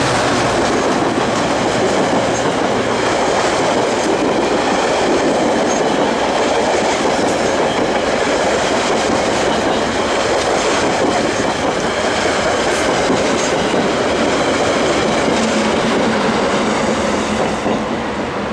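Metra bilevel commuter coaches rolling past close by, with the steady noise of steel wheels on the rails and clickety-clack over the joints. The sound fades near the end as the last car goes by.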